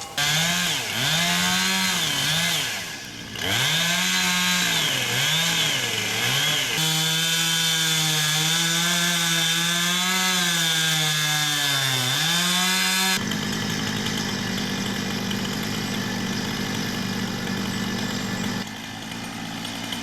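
Two-stroke chainsaw running at high revs and cutting into a bluegum trunk, its pitch repeatedly sagging and recovering as the chain bites into the wood. About 13 s in the sound changes abruptly to a steadier, rougher drone.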